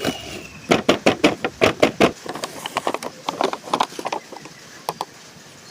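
Hard plastic toys and packaging being handled: a quick run of sharp knocks and clicks for about two seconds, then lighter, sparser clicks.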